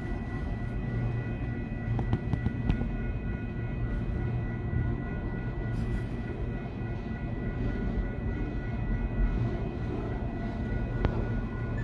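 Diesel locomotive engines running steadily with a low rumble and a steady high whine, with a few sharp clicks about two seconds in and again near the end.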